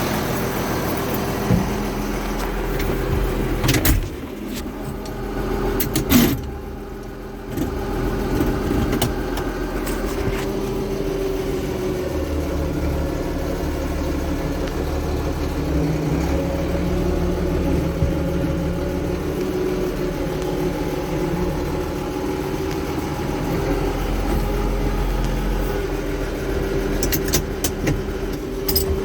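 Case International tractor engine running steadily, with sharp metallic knocks about four and six seconds in and a brief drop in the engine sound just after the second.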